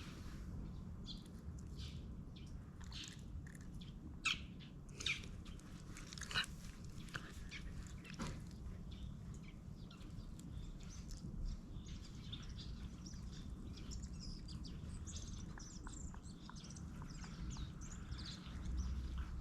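Small birds chirping on and off, with a few sharper chirps about four to six seconds in and a run of faint high chirps near the end, over a steady low rumble.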